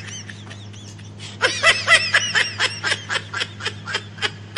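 A high-pitched, rapid snickering laugh in short pulses, about five a second, starting about a second and a half in and fading near the end, over a steady low hum.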